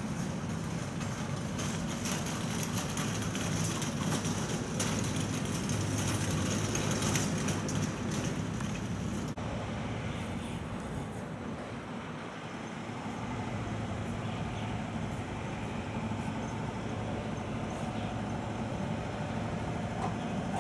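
Steady hum and running noise of a light rail tram, heard from inside the driver's cab. The higher hiss drops away sharply about nine seconds in, leaving the low hum.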